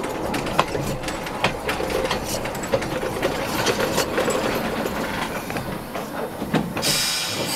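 Steam locomotive "Spreewald" shunting on narrow-gauge track: a steady mechanical rumble broken by irregular metallic clanks and knocks. Near the end a high, steady hiss sets in.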